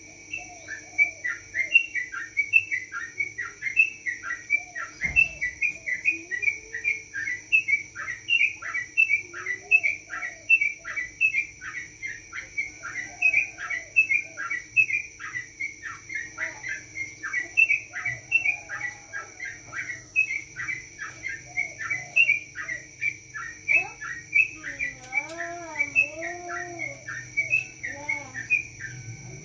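Yellow-vented bulbul (trucukan) singing a long 'ropel': short downward-sweeping notes repeated about twice a second without a break. A wavering lower call comes in near the end.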